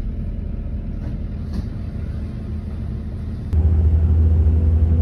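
Regional train running, a steady low rumble heard from inside the carriage. About three and a half seconds in there is a click and the deep rumble suddenly gets louder.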